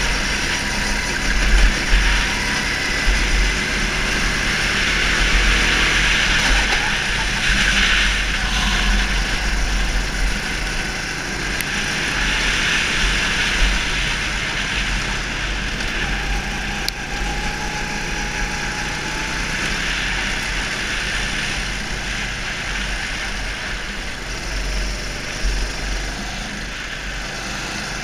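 Go-kart engine running steadily, heard from an onboard camera, with gusty wind rumble on the microphone.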